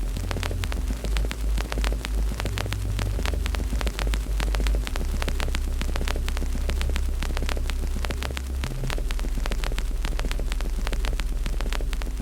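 Wood fire burning in a fireplace: dense, irregular crackles and pops over a steady low rumble.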